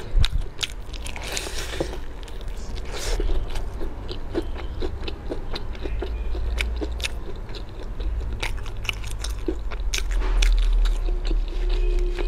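Crisp bites and chewing through the crunchy breaded crust of fried chicken drumsticks, with many short sharp crunches over a steady low hum.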